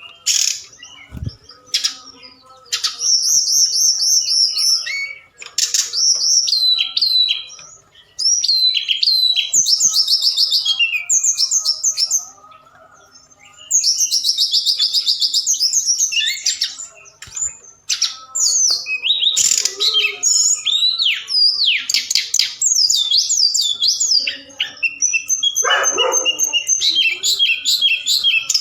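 Tledekan gunung (snowy-browed flycatcher) singing vigorously: rapid high chirps, buzzy trills and quick whistled slurs in phrases with short pauses, the full 'gacor' song used as a lure call. There is a low thump about a second in and a steep falling swoop near the end.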